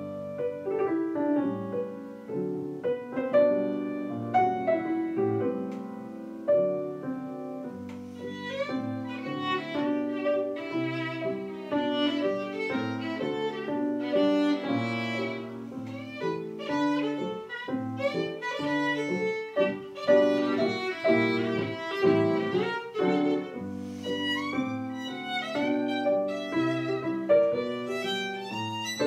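Violin and grand piano playing a rag together. The piano plays alone at first, and the violin comes in about eight seconds in.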